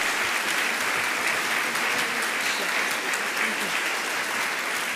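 Audience applauding steadily, a dense, even clatter of many hands clapping.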